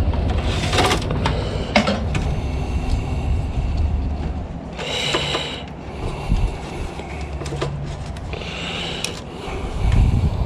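Hands working on the wiring and sheet-metal frame of a scrapped autoclave, with irregular clicks, scraping and rustling as wires are pulled free. Three short scratchy bursts come about a second in, about five seconds in and near the end, over a low handling rumble.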